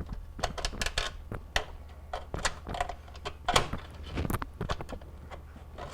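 Irregular clicks, taps and knocks of hands handling and adjusting the parts of a microwave's vent fan housing, over a faint steady low hum.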